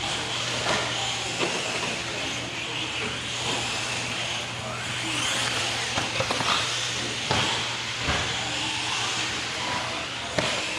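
Radio-controlled short course truck running on loose ground: a steady hiss of tyres and grit, with scattered knocks and clicks, the clearest a little past the middle.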